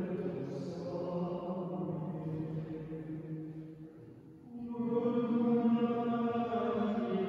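Choir of monks chanting plainchant in unison, with church reverberation. One phrase fades out about four seconds in, and a new phrase begins half a second later.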